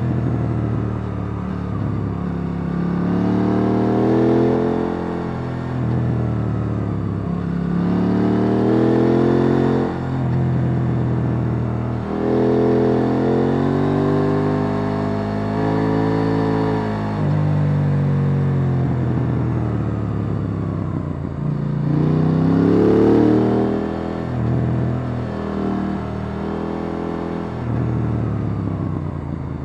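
KTM 890 Duke R's parallel-twin engine with its stock exhaust, heard from on board, repeatedly rising in pitch as the bike accelerates and falling away as it eases off, several times over.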